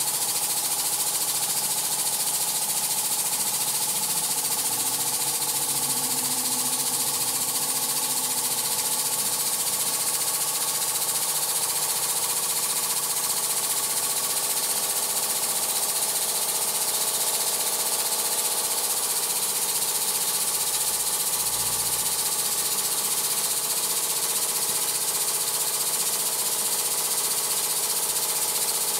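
Weeden 902 model steam engine running under steam at a steady speed, a fast, even mechanical chatter with a constant hiss.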